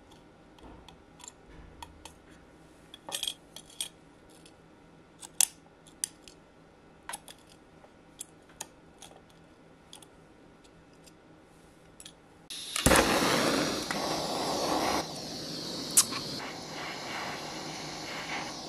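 Light, scattered clicks and clinks of steel tweezers handling small metal jewellery pieces on a soldering block. About two-thirds of the way in, a loud steady rushing hiss starts abruptly and continues.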